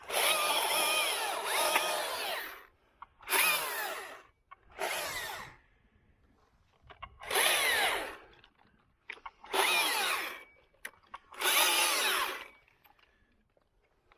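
Climbing rope whirring as it is pulled in strokes through climbing hardware, six pulls of about one to two and a half seconds each. The pitch rises and falls with the speed of each pull.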